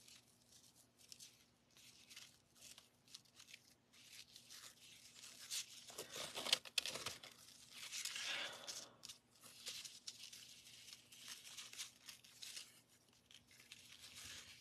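Ribbon and cardstock rustling as hands wrap a ribbon around a folded card and tie it into a bow: faint, irregular scrapes and crinkles, busiest about halfway through.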